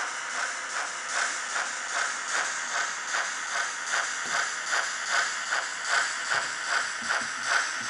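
HO-scale model train running past with its hopper wagons: an even, rhythmic beat of about two to three strokes a second over a steady hiss.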